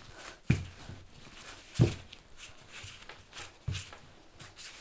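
Wooden rolling pin working a slab of brioche dough on a floured countertop, with a few dull thumps a second or two apart as the pin is pushed and pulled through its strokes.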